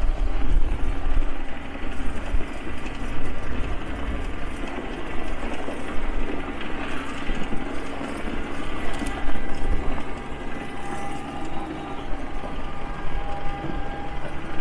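The engine of a 1950s Harris Power Horse four-wheel-drive tractor running steadily as the tractor is driven.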